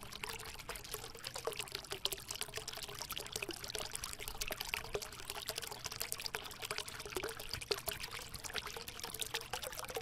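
Steady running water, a continuous trickling and splashing like a small stream.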